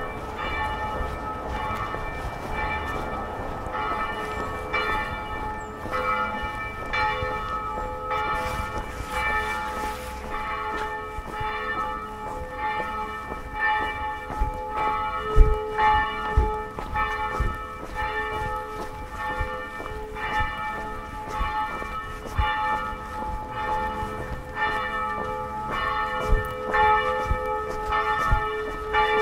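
Church bells ringing: several bells strike over and over, their tones overlapping and humming on. A few low thumps come through about halfway in and again near the end.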